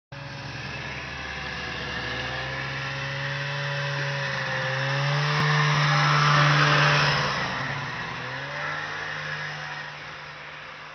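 Snowmobile engine running steadily as the sled draws closer. It is loudest about six to seven seconds in as it passes, then fades as it pulls away.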